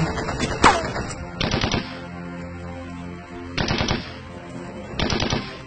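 Dubbed machine-gun fire sound effects: a sharp crack, then three short bursts of rapid fire, over background music.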